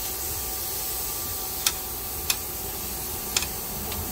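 Four sharp, separate clicks from a hand ratchet with an 8 mm socket, snugging a small nut on the starter wiring by hand, over a steady hiss. The clicks start nearly two seconds in and come at uneven gaps.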